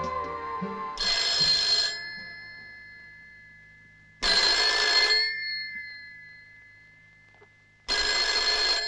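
Telephone bell ringing: three rings about three seconds apart, each lasting about a second and fading away after it stops.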